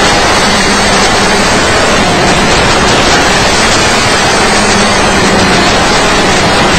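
Loud, steady hiss of static from the audio channel of an analog FPV video receiver, with a faint low hum underneath.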